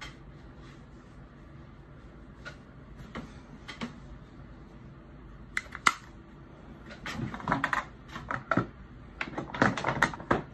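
Plastic makeup compact cases being handled on a tabletop: a few faint taps, then a sharp click about six seconds in and a cluster of clicks and knocks near the end as cases are handled and set down.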